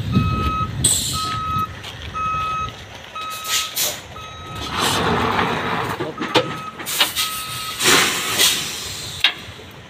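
Backup alarm on heavy equipment beeping about once a second over a low engine rumble, pausing briefly midway, with a few loud bursts of hiss.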